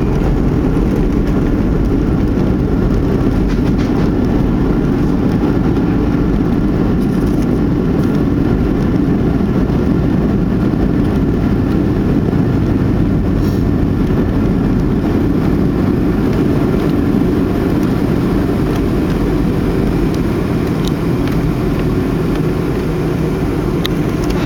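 Steady low rumble of a jet airliner rolling on the ground just after landing, heard inside the passenger cabin: engine noise and wheel rumble with no sharp events, easing slightly near the end.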